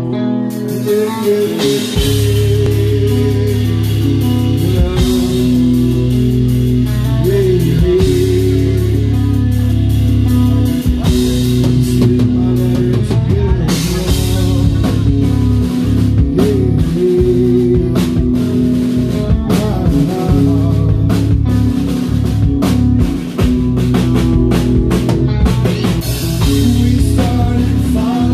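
Nu metal band playing live: electric guitars, bass guitar and drum kit with sung vocals. The full band's heavy low end comes in about two seconds in.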